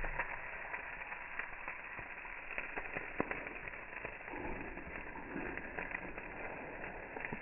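Wood fire crackling under grilling beef ribs: a steady crackle with scattered sharp pops.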